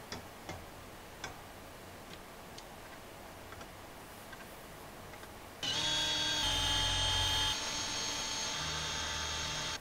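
A hand-held cordless drill starts about halfway through and runs steadily, drilling a hole in 1/2-inch steel plate; its pitch and level drop slightly partway through. Before it there are a couple of faint taps, about half a second and a second in.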